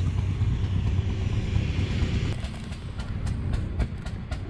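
An old truck's engine idling with its exhaust pipe broken off, a steady low rumble. About halfway through, a quick regular ticking, about five a second, comes in over it.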